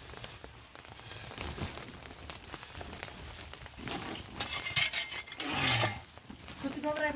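Handling sounds as a woven bag is grabbed and lifted: a few small knocks and clinks, then a loud rustle of the bag for about a second and a half past the middle.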